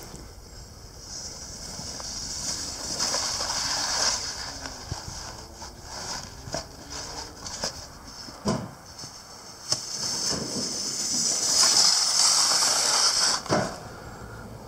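A small snowboard sliding and scraping over packed snow and ice: a hiss that swells twice, dropping off sharply near the end, with a few scattered knocks.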